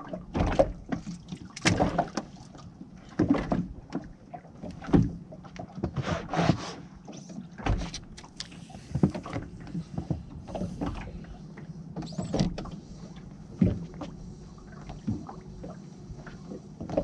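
Irregular knocks and water splashes on a fishing kayak, roughly one a second, as a freshly landed shortfin squid is handled aboard. A low steady hum runs underneath.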